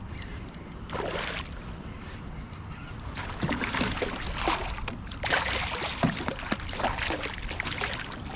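Water splashing and sloshing against a small fishing boat, irregular and a little louder from about three seconds in, over a low wind rumble.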